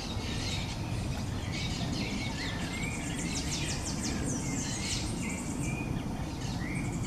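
Small birds chirping in the background: many quick, high down-sweeping chirps and a few short rising notes, over a steady low rumble.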